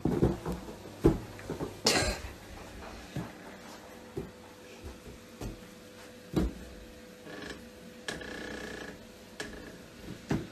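Irregular hollow knocks and bumps of a clear plastic ball stuck over a cat's head, knocking against the floor and door frame as the cat moves about. The knocks are loudest in the first two seconds, then come singly every second or two, with a brief scraping rub a little after the middle.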